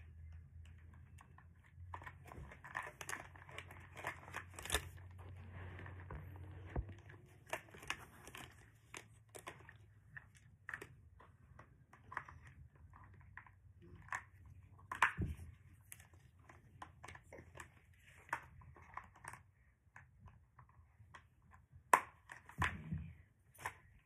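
Hard plastic toy track pieces being handled and fitted together: irregular clicks, knocks and crinkling, busiest in the first several seconds, with a few sharper clicks later.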